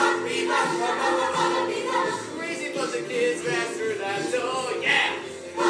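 A stage-musical song: a chorus of voices singing together over an instrumental backing.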